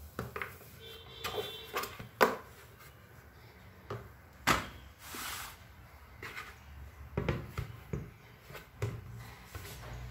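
Irregular knocks and bumps from a large pot being handled, with soft rustling as a ball of biscuit dough is worked in it and then tipped out onto a plastic plate; the sharpest knock comes about two seconds in.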